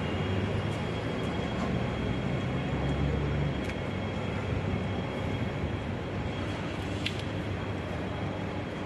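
City street traffic: a steady low rumble of road vehicles, swelling as a heavier vehicle passes about two to three seconds in, with a faint steady high whine above it.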